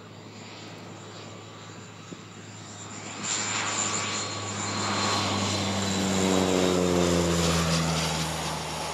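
A twin-engine turboprop plane on a low landing approach, its engines and propellers droning with a high turbine whine. It grows louder as it nears, and the pitch falls as it passes close by near the end.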